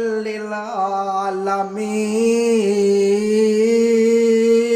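A man's voice chanting a Quran verse in a melodic, drawn-out recitation. About two seconds in, he settles on one long held note.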